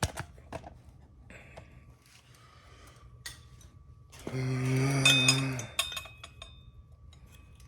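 A few light clinks of tools, then an impact wrench runs in one hammering burst of about a second and a half, breaking loose a rear sprocket bolt threaded into the wheel hub.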